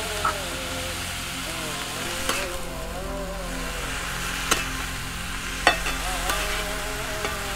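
Shredded cabbage and tomato sizzling steadily in a metal pan over a wood fire. A metal spatula stirs and scrapes the vegetables, with sharp clinks against the pan every second or so.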